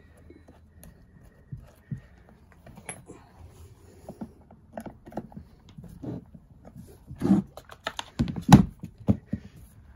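Light clicks and taps of a Stihl chainsaw body and hand tools being handled, with a few louder knocks near the end.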